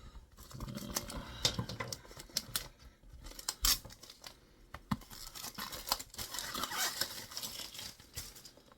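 Small sharp knife scoring and slitting the plastic wrap on a cardboard box, with irregular scratching, sharp clicks and crinkling as the plastic is cut and pulled off; a denser rasping stretch comes about six seconds in.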